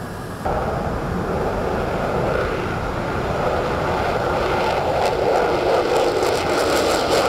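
F-22 Raptor taking off, its twin Pratt & Whitney F119 turbofans at takeoff power: loud, steady jet noise that cuts in suddenly about half a second in and grows slightly louder, with a crackling edge from about five seconds in.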